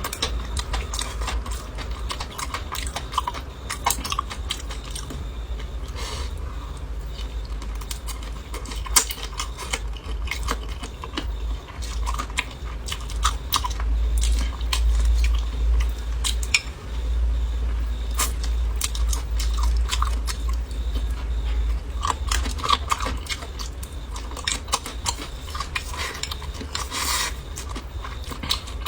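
Close-miked eating: chewing and biting with wet smacks and crunches, many short clicks scattered throughout, and now and then the clink of utensils on dishes, over a steady low rumble.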